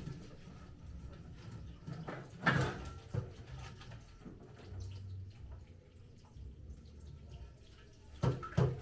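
Water splashing and dripping as leafy greens are washed by hand in a basin, with a louder splash about two and a half seconds in and a couple more near the end.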